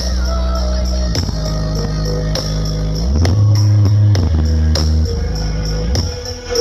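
Music played loud through a large Blizzard Audio carnival sound system. Deep sustained bass notes change about every second under a steady beat of drum hits.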